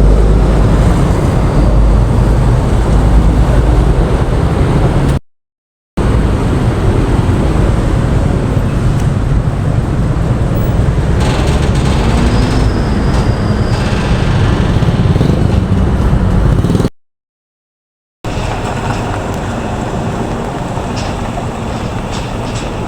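Loud, steady low rumble of road traffic, broken twice by brief silent gaps where the recording cuts out.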